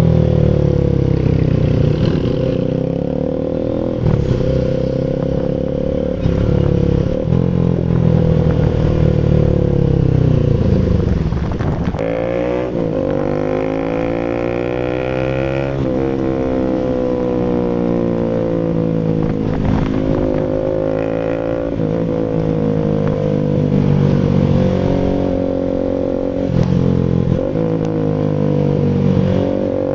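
Rouser RS200's single-cylinder engine through an SC Project full exhaust, its revs climbing and falling several times, with sharp drops in pitch around the middle.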